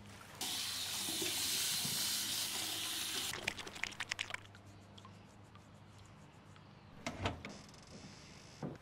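Water running hard from a tap for about three seconds, then shut off, followed by a quick run of drips and clicks. A dull thump comes about seven seconds in.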